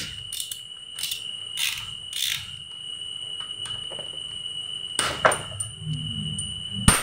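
Spanner and screwdriver clinking against a motorcycle engine's metal parts as a bolt is worked loose: irregular sharp metallic clinks and knocks, the sharpest near the end. A steady high-pitched whine sounds behind them.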